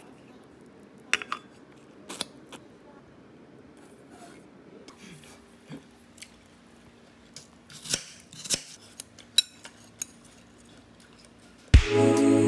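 Scattered light clicks and clinks of utensils against a metal tumbler and dishes over quiet room tone. Music starts suddenly just before the end.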